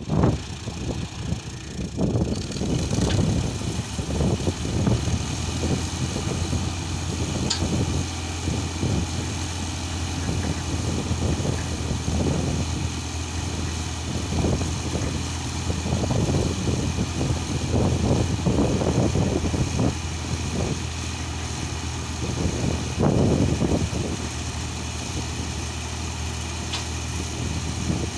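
Tractor engine running steadily, with uneven surges of low rumble that settle about 24 seconds in.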